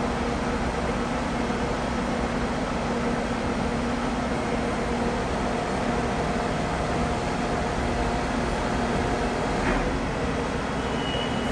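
Steady machinery noise with a low hum, with one brief click about ten seconds in and a short high tone near the end.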